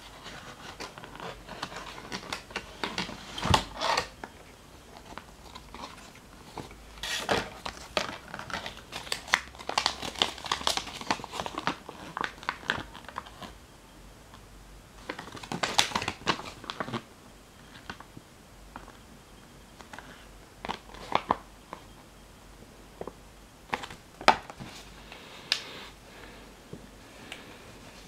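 Crinkling and rustling of plastic packaging and a paper leaflet being handled, in irregular bursts with sharp crackles and clicks and short quiet gaps between.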